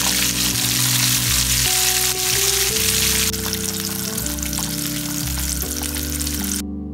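Corn dogs deep-frying in hot oil, a loud, steady sizzle and bubbling that cuts off suddenly near the end.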